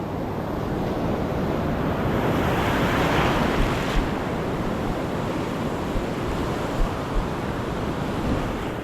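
Ocean waves washing on the shore, with one surge swelling up about two to four seconds in, and wind buffeting the microphone.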